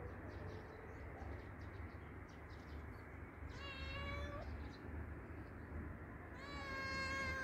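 Tabby cat meowing twice: a short meow about three and a half seconds in, then a longer, louder meow near the end that drops in pitch as it trails off.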